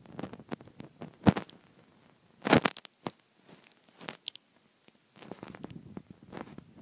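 Irregular scratching, tapping and handling noises close to the microphone as a plastic pick digs lint out of an iPhone's charging port, with a sharp knock about a second in and a louder scrape about two and a half seconds in.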